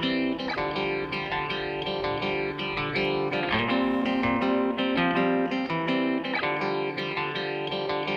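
Background music led by plucked guitar, with regular note changes.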